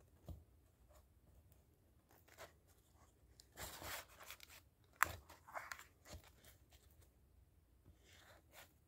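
Faint rustling of glossy comic book pages being turned by hand, in a few separate page turns, with a sharp paper snap about five seconds in.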